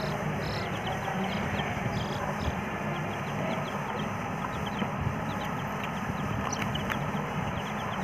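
A group of baby chicks peeping continuously: many short, downward-sliding peeps overlapping one another, over a steady background hiss and low hum.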